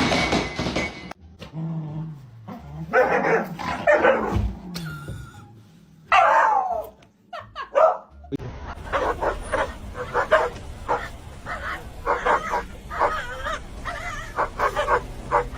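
Dogs barking, yipping and whining across several short cuts, with a falling whine in the middle and a quick run of short barks and yips in the second half.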